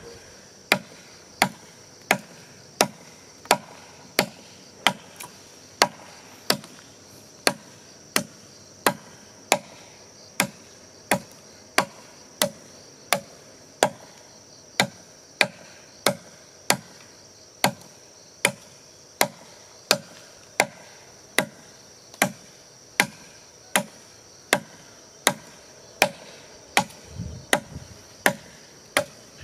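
Steady chopping with a blade into wood, one sharp stroke about every two-thirds of a second, evenly paced, over a continuous high-pitched drone of insects such as crickets.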